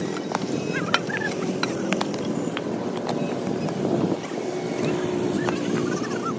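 Interlocking concrete paver blocks clacking against each other as they are set in place: sharp knocks scattered irregularly, over a steady background hum.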